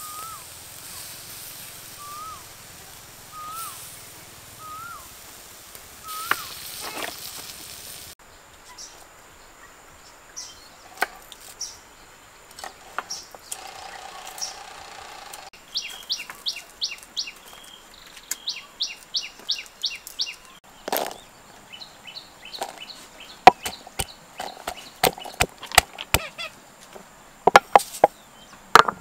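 Birds calling: a short rising chirp repeated about once a second over a soft hiss for the first several seconds, then quick runs of twittering calls. Near the end comes a series of sharp knocks on wood.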